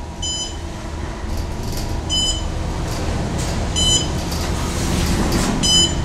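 Passenger elevator's electronic signal beeping four times, short high beeps about two seconds apart, over the steady low hum of the car in motion, the beeps marking floors passed as it travels.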